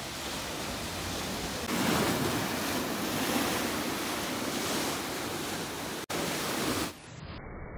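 Sea surf breaking at the shore and washing in as foam, a steady rush that swells louder about two seconds in. It breaks off for an instant just after six seconds and drops away suddenly near the end.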